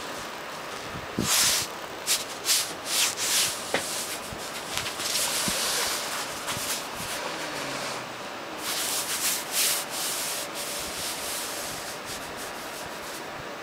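Scratching and rubbing on a bare fabric mattress pad: a run of short, sharp swishing strokes from about a second in, easing off over the last few seconds.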